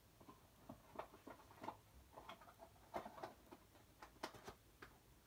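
Faint, irregular taps and clicks of paper pamphlets and a cardboard box being handled.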